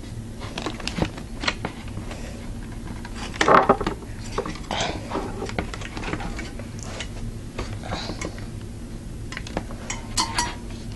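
Hands working the fans and clips off a Cooler Master V6GT tower CPU cooler's metal heatsink: irregular small clicks, scrapes and light metallic clinks, with a louder scuff about three and a half seconds in.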